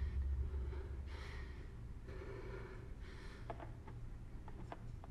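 A person breathing hard: four audible breaths about a second apart, followed by a scatter of faint light taps.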